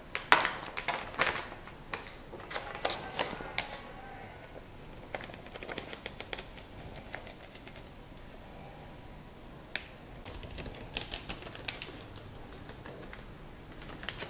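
Irregular light clicks and crinkles of a plastic developer packet being handled and emptied into a copier's developer unit, busiest in the first few seconds and again near the end.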